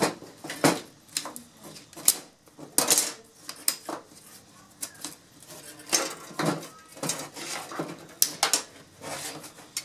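Flathead screwdriver prying at the thin sheet-metal frame of a Samsung SyncMaster 940BW's LCD panel, unclipping its plastic frame: irregular metallic clicks, scrapes and clatter.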